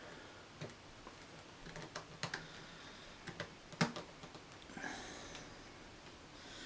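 Scattered small clicks and taps of hard plastic statue parts being handled and press-fitted together, the sharpest click about four seconds in, with a brief soft rustle shortly after.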